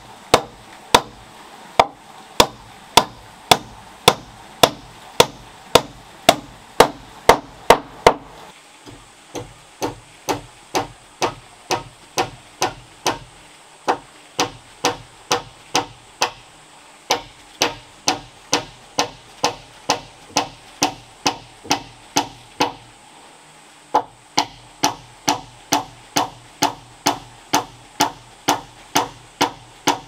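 Steady hammering on wood, about two blows a second, with short pauses about 9 s and 23 s in.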